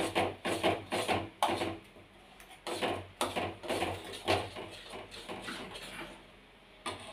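A spoon scraping thick paste out of a steel mixer jar and stirring it into gravy in a steel pan: quick scraping strokes, about two or three a second, that fade after about four seconds.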